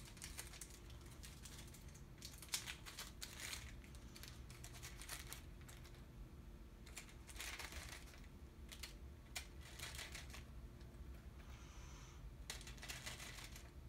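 Small electronic parts handled on a workbench mat: irregular clusters of faint clicks, taps and rustles a second or so apart, with short pauses between them.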